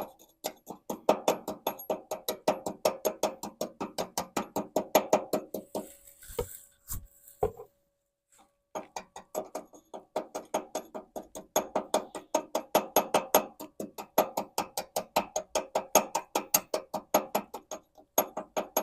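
Hammer peening a fresh weld on cast iron in rapid, even strikes, about six a second, the metal ringing with each blow. The strikes slow to a couple of single blows and pause near the middle, then resume. Peening stretches the weld bead so it does not crack.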